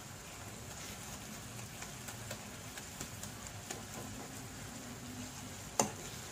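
Metal spoon scraping and tapping against a nonstick kadai while stirring chopped tomato, onion and green chilli frying in oil, over a faint steady sizzle. One louder knock of the spoon on the pan near the end.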